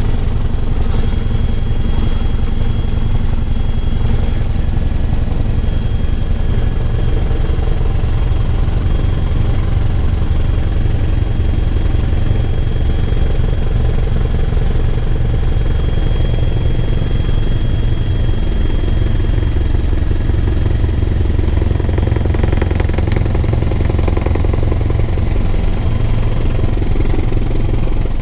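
Bell 412 helicopter in steady flight, heard from inside the cabin: a loud, constant low rotor and engine drone with a thin, steady high whine over it.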